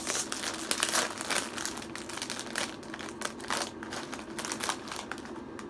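Chip bag crinkling as it is pulled open and handled: a dense run of sharp crackles that thins out over the last few seconds.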